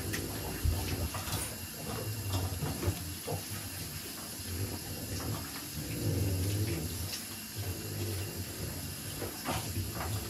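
Water running and splashing in a bathtub while wet French bulldogs are washed, with small knocks against the tub.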